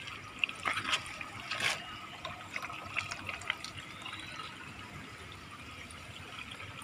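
Water trickling and splashing steadily from PVC elbow pipes into shallow PVC hydroponic growing channels, the system running with its first water flushed through to clean it. A few sharp clicks come in the first two seconds.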